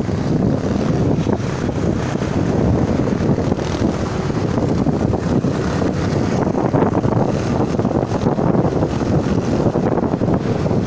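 Steady wind buffeting the microphone of a moving motorcycle, a constant low rumble of wind and road noise.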